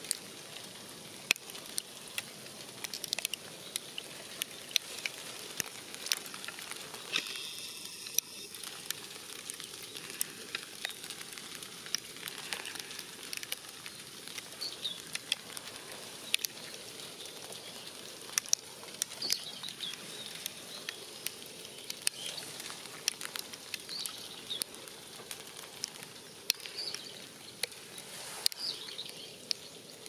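Falling snow pattering steadily: scattered sharp ticks over a soft hiss, with a few faint high chirps in the second half.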